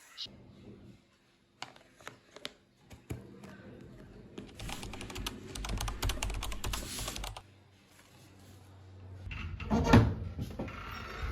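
A few separate light clicks, then a run of rapid tapping lasting about three seconds, and a louder knock near the end.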